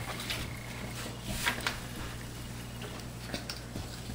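A child's bicycle helmet in its cardboard packaging being handled and fitted on: a few faint clicks and rustles over a steady low hum.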